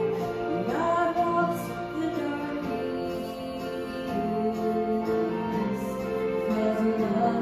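Gospel song: a woman singing into a microphone with instrumental accompaniment.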